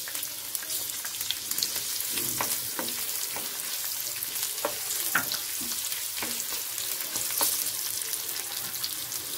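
Chopped onions and green chillies sizzling in hot oil in a non-stick frying pan, a steady hiss, stirred with a wooden spatula that gives scattered scrapes and taps against the pan.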